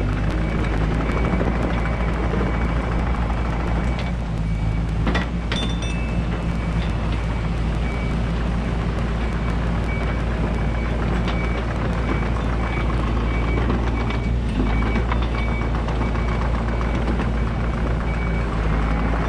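Yanmar mini excavator's diesel engine running steadily while it tracks and pushes dirt with its blade, with a high alarm beep repeating in short regular pulses, typical of the machine's travel alarm. A few metallic clanks stand out around five seconds in.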